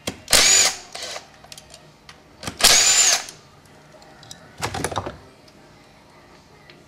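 Handheld power tool spinning bolts out of an automatic transmission case in three short runs, its motor pitch rising and falling each time.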